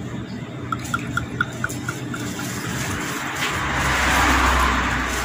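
Paolyta B tonic poured from a glass bottle into a plastic cup of Vitali soda: a run of about eight quick glugs that fade out in the first couple of seconds, then a steady rush of pouring liquid that swells louder toward the end.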